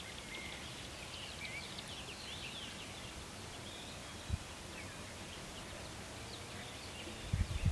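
Small birds chirping in quick, short calls over a steady outdoor hiss, with a single low thump about four seconds in and a run of low thumps starting near the end.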